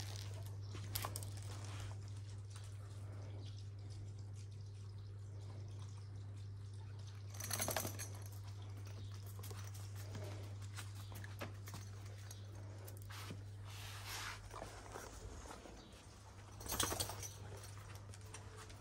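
Kangal dogs moving about on gravel and tiled paths: faint footfalls, scuffs and clicks over a steady low hum, with two short louder noisy bursts, about eight and seventeen seconds in.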